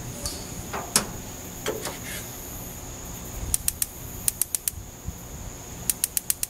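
Gas grill side burner's spark igniter clicking in quick runs of about ten ticks a second, starting about halfway through, as the knob is held in to light the propane burner. A single sharp knock about a second in.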